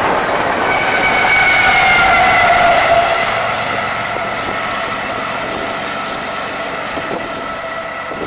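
Intermodal freight train rolling past on the rails, with a locomotive approaching. From about a second in, a chord of steady high tones rises over the rumble, then sinks slowly in pitch and fades.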